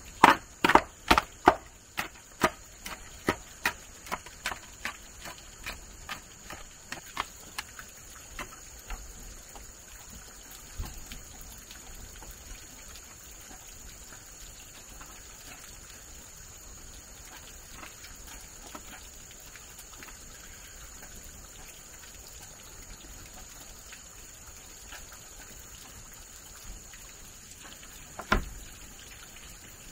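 A run of sharp, evenly spaced knocks, two or three a second, growing fainter until they die out about nine seconds in; a single knock sounds near the end, over a steady high thin tone.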